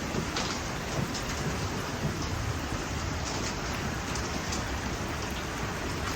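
Steady rain falling on a boat, heard from inside its dry enclosure, with scattered drops ticking. This is the tail end of a thunderstorm.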